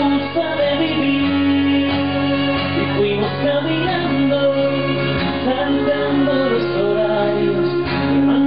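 Live acoustic music: a strummed steel-string acoustic guitar with a violin playing long, sustained notes.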